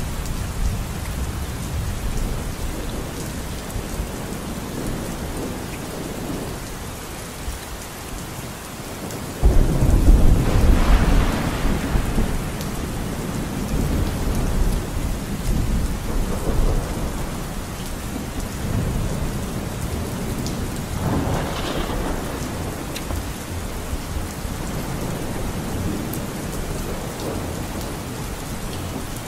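Steady rain, with a heavy low rumble throughout. A louder rumble of thunder breaks in suddenly about ten seconds in and lasts a few seconds.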